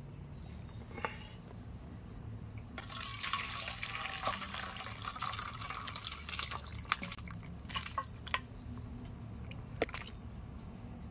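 Thick duck curry poured from a metal pan into a steel bowl: a few seconds of pouring and splashing liquid, followed by scattered clinks and scrapes of the pan against the bowl as the rest is tipped out.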